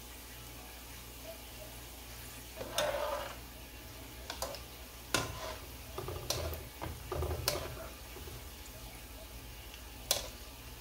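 Sesame-coated pumpkin balls deep-frying in oil in a nonstick pan, a steady low sizzle. Several sharp clicks and knocks come from about a third of the way in, as a wire skimmer is stirred through the balls and taps the pan.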